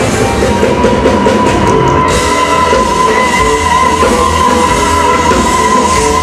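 A live blues band playing loud, with electric guitar and drums; one long high note is held from about a third of a second in.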